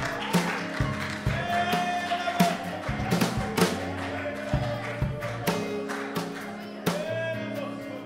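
Live worship band music: held chords over a steady bass, with drum hits.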